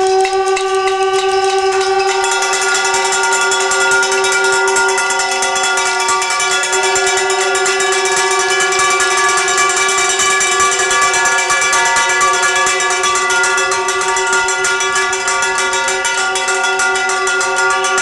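A hand-cranked siren holds a loud, steady wail throughout. From about two seconds in, rapid clattering and banging on the corrugated metal fence sound over it.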